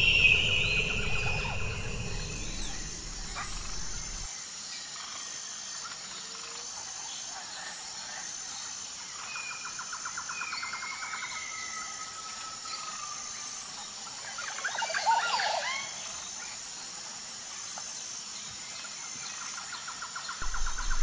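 Outdoor ambience of birds and insects: a steady, evenly pulsing high insect chirp throughout, with bursts of rapid trilled calls and a few gliding bird notes, and a brief flurry of bird calls about two-thirds of the way through. A low rumble underneath cuts off suddenly about four seconds in.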